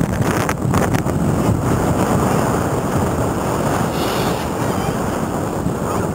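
Wind rushing over the camera microphone of a skier going downhill, mixed with the steady hiss of skis sliding over groomed snow.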